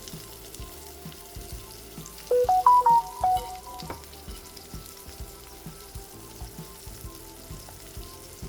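Brinjal slices shallow-frying in a little oil in a pan: a steady crackling sizzle. About two and a half seconds in, a short phrase of a few musical notes plays over it, louder than the frying.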